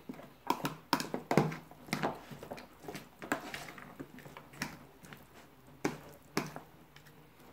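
A bare hand mixing mayonnaise-dressed chopped chicken and onion in a plastic tub: irregular wet squelches and smacks, busier in the first few seconds and sparser near the end.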